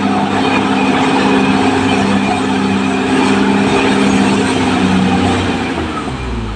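Caterpillar D6R XL bulldozer's diesel engine running steadily under load, with clattering track and earth-moving noise. The engine note eases and drops a little near the end.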